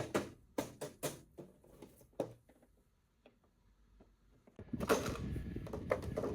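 Hard plastic toy parts being handled, giving sharp clicks and taps. After a short pause, a denser, continuous plastic rattle with clicks starts about three-quarters of the way in.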